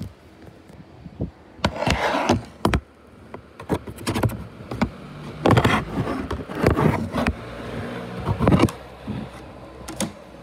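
Irregular rubbing, bumping and knocking from the recording device being handled and moved about, close to its microphone, with a faint low hum underneath.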